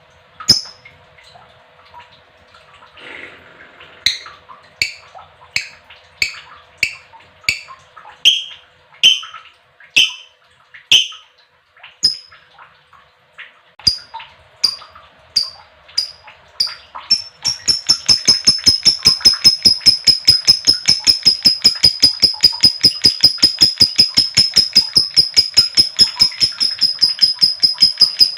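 Female lovebird calling: separate sharp, high chirps about once or twice a second, then about two-thirds of the way through it breaks into a fast, even chatter of many notes a second that keeps going, the long 'ngekek' song that lovebird keepers prize.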